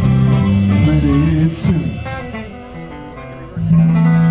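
Live band with acoustic and electric guitars, bass and drums playing. The playing thins and drops in level through the middle, then a loud chord comes in about three and a half seconds in and is held.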